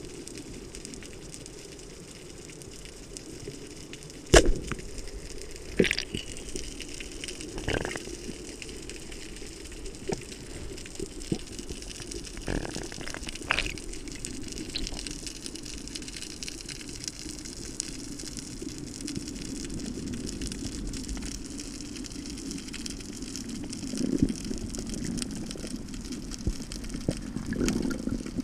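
Underwater ambience: a steady crackling hiss with scattered sharp clicks and knocks, the loudest a sharp crack about four seconds in. A rushing swell of water comes about two-thirds of the way through and again near the end.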